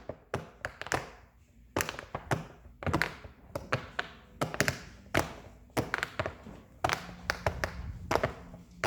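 Large silicone pop-it fidget toy being pressed bubble by bubble, a run of irregular soft pops about two to three a second.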